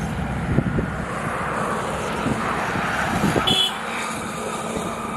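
Motorcycle engine running close by as the bike passes, a steady low rumble that drops away suddenly about three and a half seconds in.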